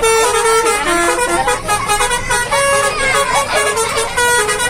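Bus basuri (telolet) horn playing a melody: a string of short held horn notes stepping between pitches.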